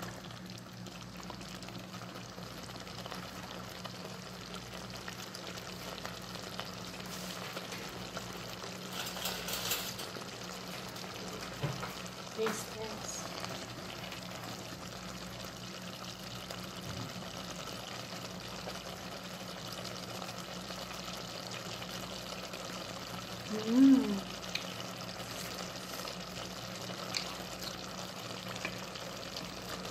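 Chicken heart and vegetable stew simmering and sizzling in a metal pot while a ladle stirs it, with a few clicks of the ladle against the pot. A brief voice sound, the loudest thing, comes about two-thirds of the way through.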